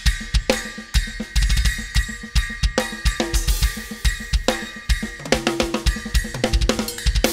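Drum kit played with a small 8-inch Meinl Classics Custom bell cymbal: quick kick drum hits under snare and cymbal strikes, with a bright bell ping that keeps ringing and carries past the last hit.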